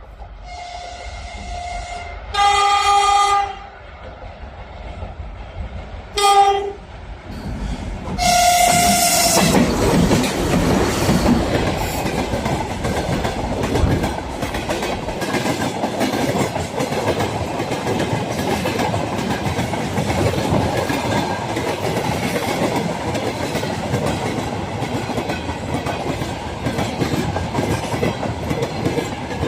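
AZ8A electric locomotive sounding its horn in several blasts as it approaches through the station, one long and loud, one short, and a last one as it arrives. It then passes at speed, followed by the loud rumble and rhythmic clatter of the wagons' wheels over the rail joints.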